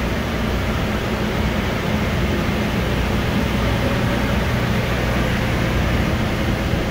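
Steady mechanical drone of running machinery, a low hum under an even rushing noise that doesn't change.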